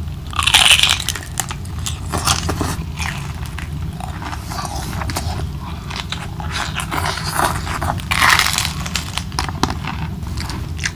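Close-miked biting and chewing of crispy fried milkfish and adobo-style water spinach, with crackly crunches; the loudest bites come near the start and about eight seconds in. A steady low hum runs underneath.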